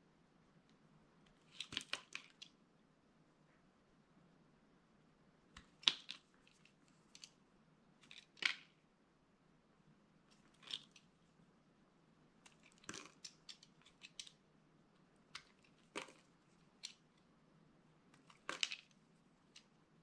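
Small utility knife blade cutting into a hard bar of soap, crisp crackling crunches as curls and chunks split off. They come in short bursts every second or two, with quiet between.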